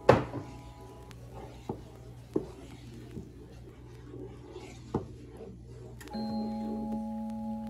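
Wooden spatula stirring thick cream soup in a pan: a soft, uneven swishing of liquid with a few light clicks of the spatula against the pan. Background music with plucked notes plays over it, loudest at the start and again from about six seconds in.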